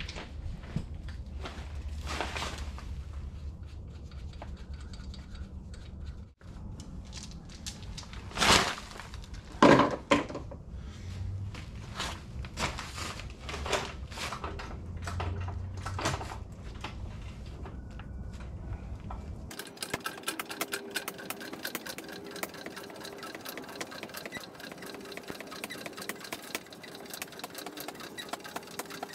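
Scattered knocks and clanks of metal parts and tools being handled, loudest twice around the ninth and tenth seconds. Then, from about two-thirds of the way in, a small machine runs steadily with a fast, even ticking.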